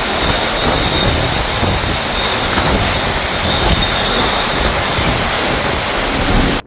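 Hurricane-force wind and driving rain: a loud, steady rush with a faint high whistle running through it, cutting off suddenly at the very end.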